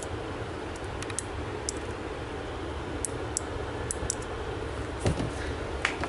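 Small, sharp clicks and taps, about ten scattered at uneven spacing, from a hand working a lever-arm limit switch, over a steady background hum.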